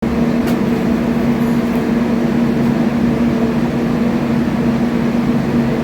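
Steady electrical machine hum, a low even drone that does not change.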